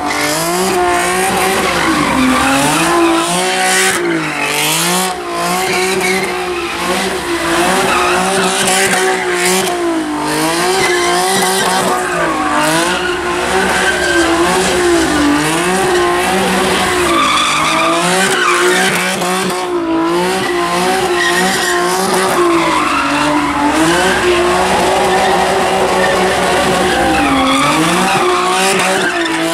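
A car doing donuts: the engine is held at high revs while the tyres spin and squeal. The revs sag briefly every few seconds and climb back.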